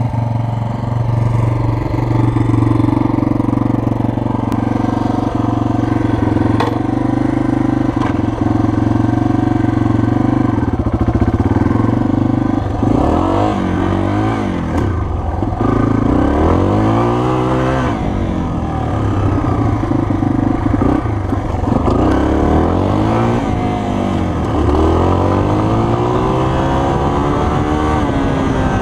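Yamaha TT-R230 dirt bike's single-cylinder four-stroke engine, heard from the rider's helmet camera. It holds a steady note for about the first twelve seconds, then revs up and drops back again and again as the bike accelerates and shifts through the gears.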